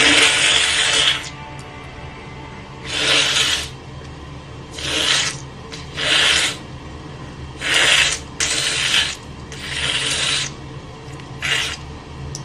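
A woman with an allergy sneezing over and over: about eight sudden, breathy, unpitched bursts. The first and longest comes at the start, and the others follow roughly every second.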